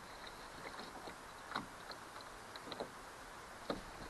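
A few light knocks and small clicks, spaced irregularly, from a shad and a smartphone being handled on a small boat's plastic deck.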